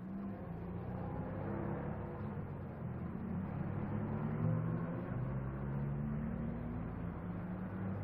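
Breakdown truck's engine running steadily as it tows a car away, a low hum that wavers slightly in pitch.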